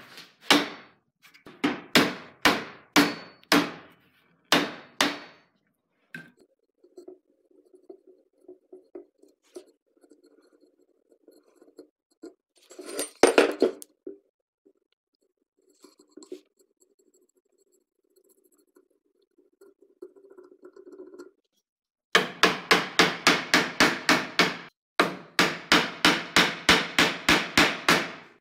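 Hand tools working a wooden hatchet handle: a few slow, rough file strokes on the wood, then quieter scraping and handling with a brief clatter about halfway through. Near the end comes a fast, even run of sharp strikes, about four a second, on the end of the handle held in the vise.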